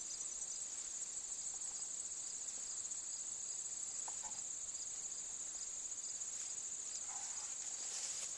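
A steady, high-pitched chorus of crickets trilling, with a fine, even pulse.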